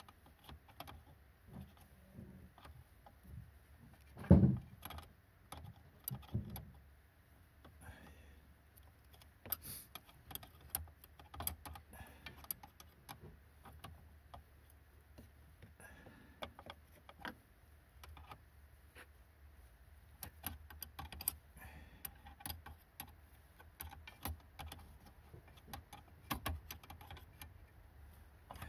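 Scattered small metallic clicks and clinks of hands and tools working a brake line union nut at the flexible brake hose, with a louder thump about four seconds in and a smaller one a couple of seconds later.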